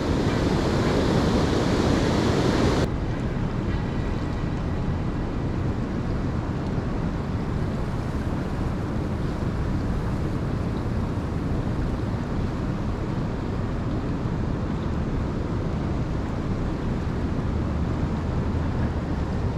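Fast-flowing floodwater rushing steadily in a swollen river. A brighter, hissier layer cuts off abruptly about three seconds in, leaving a lower, even rush.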